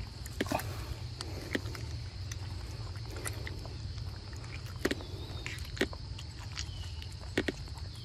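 Steady high drone of insects over a low rumble, broken by a handful of short sharp clicks and rustles as macaques feed on mango pulp held out by hand over dry leaf litter.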